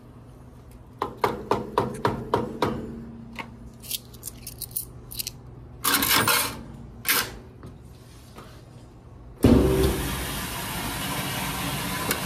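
Coins clicking one by one into the metal coin slide of a coin-operated Whirlpool commercial washer, about six sharp clicks, then the slide pushed in with a short metallic scrape. Near the end a loud thump sets off a steady rushing noise.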